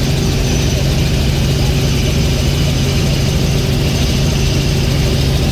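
Helicopter engine and rotor noise heard from inside the cabin in flight: a loud, steady drone with no change in pitch or level.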